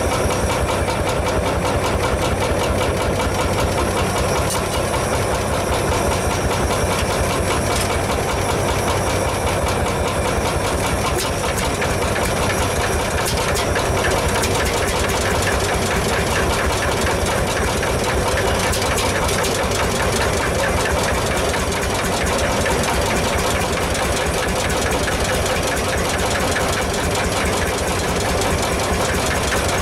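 Single-cylinder hot-bulb two-stroke semi-diesel tractor engine running steadily, its exhaust beats coming fast and even.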